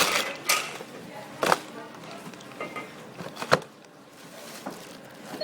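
Groceries being handled: a few sharp knocks and clatters, one every second or two, over faint background chatter.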